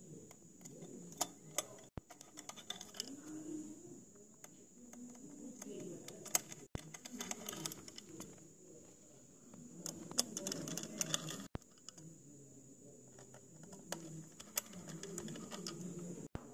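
Small screwdriver driving screws into a metal microscope stage frame: scattered light clicks and scrapes of the tool on the screws and frame, with low handling noise and a faint steady high-pitched whine.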